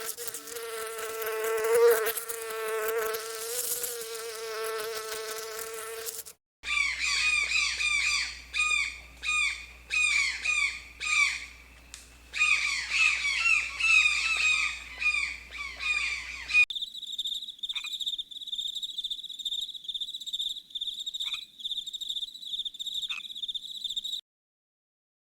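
A flying insect's steady buzz for about six seconds. It cuts to a run of short, repeated chirping calls, then to a steady high-pitched insect trill like a cricket's, which stops abruptly near the end.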